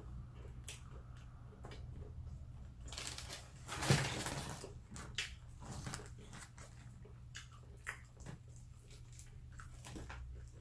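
Close-up chewing and crunching of fried food, a string of small wet clicks with a louder crunchy burst about four seconds in, over a steady low hum.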